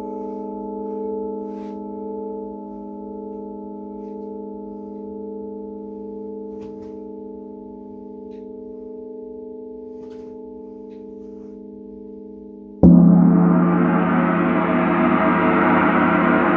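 A struck metal instrument rings on in steady, slowly fading tones; about thirteen seconds in, a Paiste gong is struck with a mallet and blooms at once into a loud, dense, shimmering wash.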